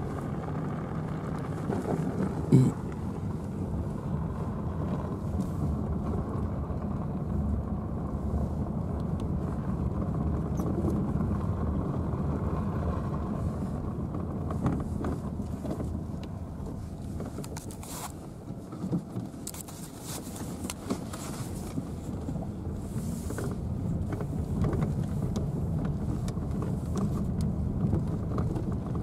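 Car driving slowly over a rough dirt track, heard from inside the cabin: a steady low rumble of engine and tyres, with a few sharp knocks and rattles along the way, the loudest about two and a half seconds in.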